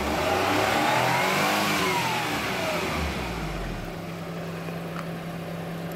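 Petrol car engine revved once: its pitch climbs for about a second and a half, falls back, and settles into a steady idle.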